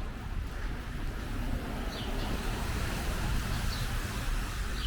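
Steady city street noise in snowfall: traffic and the hiss of tyres on a wet road over a low rumble, swelling a little midway. A few faint short high chirps sound now and then.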